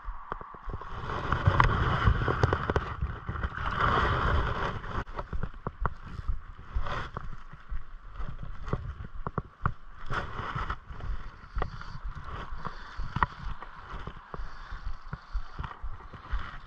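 Shallow stream running over stones, with louder water splashing and sloshing for a few seconds starting about a second in. Scattered light knocks and taps come from handling and wading.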